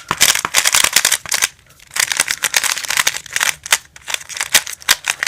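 Rubik's RSC plastic 3x3 speed cube being turned fast, giving dense runs of clicking, clacking layer turns. The runs break off briefly about one and a half seconds in and again near four seconds.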